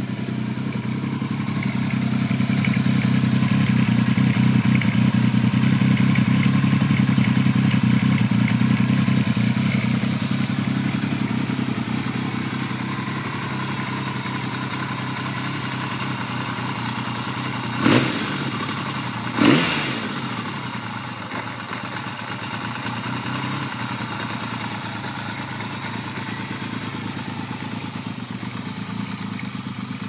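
Yamaha XS850's air-cooled inline-three idling through a Motad 3-into-1 exhaust. It swells louder for a few seconds and eases back, then is blipped twice with the throttle about two-thirds of the way through, each rev rising and dropping quickly before it settles back to idle.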